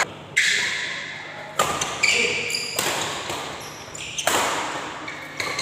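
Badminton rally in a reverberant hall: about five sharp racket smacks on the shuttlecock, each ringing on in the room, with shoes squeaking briefly on the court floor.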